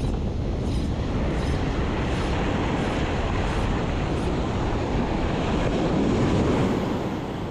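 Wind buffeting the microphone over surf washing up a sandy beach, with a wave breaking close by about six seconds in.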